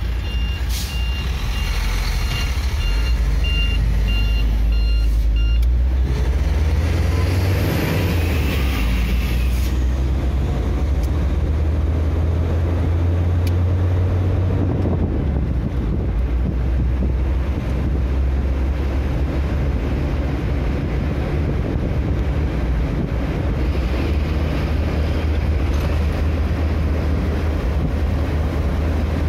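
Engine and road noise inside a vehicle's cab as it pulls away from a stop and drives on. A repeating electronic beep sounds for the first five seconds or so. The engine note then rises as the vehicle accelerates and settles into a steady low drone with tyre and road noise.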